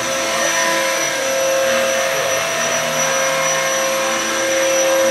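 Radio-controlled model helicopter in flight: its motor and rotors give a steady whir with a high whine held at a constant pitch.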